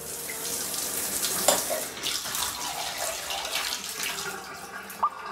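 Water pouring from a small shower head and splashing onto a plastic toy elephant, the flow tapering off as the shower runs dry. A single drip sounds near the end.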